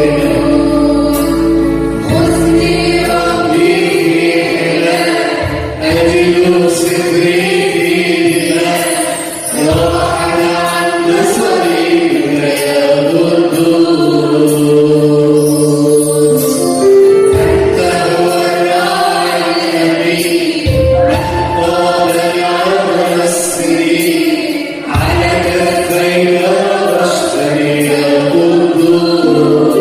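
Church choir singing an Arabic Christian hymn over an instrumental backing with a bass line and a steady beat.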